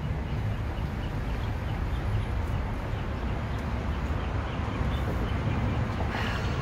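Steady low rumble of street traffic, with faint high chirps over it.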